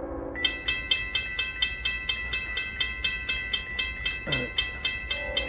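A railroad grade-crossing warning bell starts ringing about half a second in, with about four strikes a second, as a locomotive's multi-note horn chord cuts off. About four seconds in, a brief tone falls sharply in pitch.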